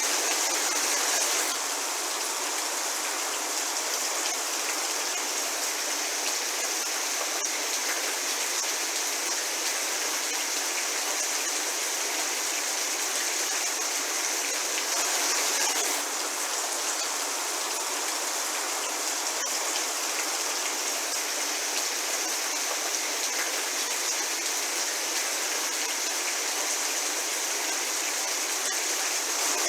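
Steady medium rain falling, an even hiss of raindrops with slight swells in intensity.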